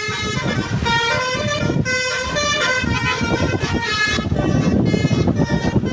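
Basuri telolet multi-tone bus horn playing a tune of quickly stepping notes, with a low rumble underneath.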